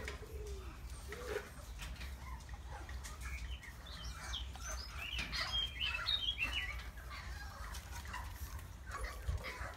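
Small birds chirping and twittering in quick high phrases, busiest about halfway through, over a low steady rumble.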